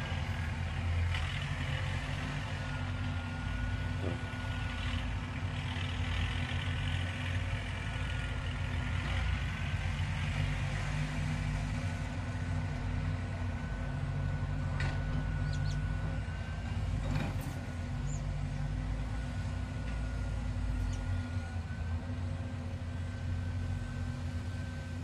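Caterpillar 320 hydraulic excavator's diesel engine running under digging load, with a thin high hydraulic whine that steps slightly down and up in pitch as the boom and bucket work, and a few light clanks.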